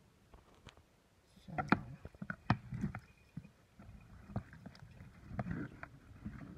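Pureed bean liquid sloshing and splashing in a pot as it is poured and swirled, with irregular knocks and clicks of a bowl or utensil against the pot.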